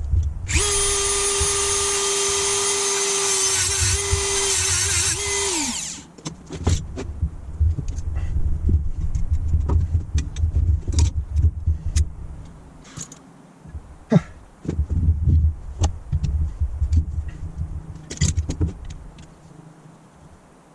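A small power tool's motor runs at a steady high speed for about five seconds, wavers, then winds down and stops, followed by scattered clicks and knocks.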